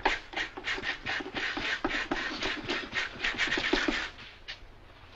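Rapid scraping strokes of a hand tool worked against a bowl, several a second, easing off about four seconds in, with one last scrape shortly after.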